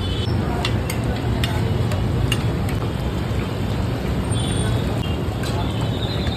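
Steady street noise: a low traffic rumble under a constant hiss, with scattered sharp clicks and a brief high tone near the end.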